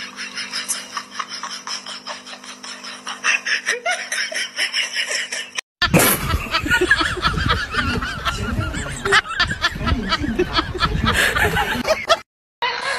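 People laughing in quick breathy bursts. About six seconds in it cuts abruptly to louder, rougher sound: water splashing in a bucket, with more laughter over it.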